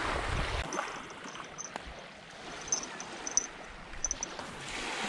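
Wind rumbling on the microphone for the first moment, then a soft wash of water with a few faint high ticks. Near the end the wash swells into a broader hiss.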